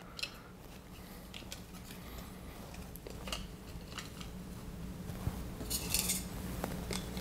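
Trading cards and their packaging being handled by hand: faint scattered clicks and taps, with a brief sliding rustle about six seconds in.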